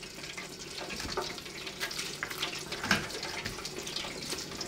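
Chicken deep-frying in hot oil in a T-fal FR8000 electric deep fryer: a steady sizzling hiss scattered with small crackling pops.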